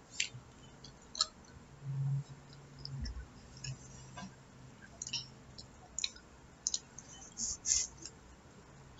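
Quiet eating sounds: scattered small clicks from a boy chewing pizza and handling the slice, with a short low hum about two seconds in.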